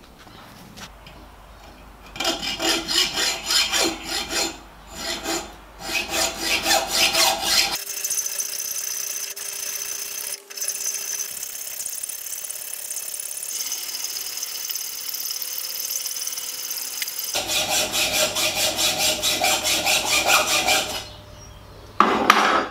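A hand file rasping back and forth across a mild-steel block clamped in a bench vise, in quick repeated strokes, with a steadier stretch of rasping in the middle. A short loud clatter comes just before the end.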